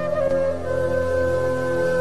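Background music: a slow melody of long held notes over sustained low tones.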